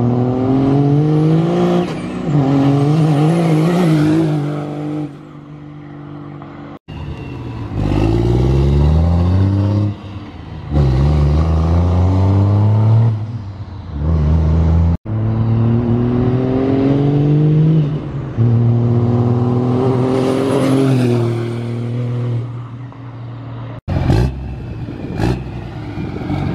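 Straight-piped 5.9 Cummins inline-six diesel in a manual pickup pulling hard several times, its pitch climbing through each gear and dropping at the shifts, with a high whistle rising along with the engine. The pulls are separate takes broken by sudden cuts.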